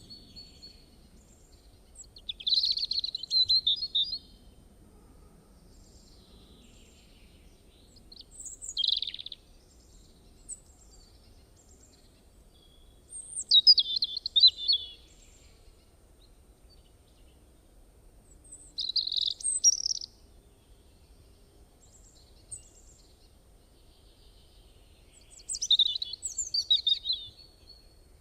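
A songbird singing: five short, high-pitched song phrases of about a second or two each, spaced some five to six seconds apart, with faint chirps between them.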